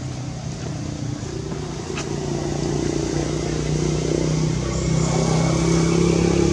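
A vehicle engine running steadily, getting louder about halfway through, with a single sharp click about two seconds in.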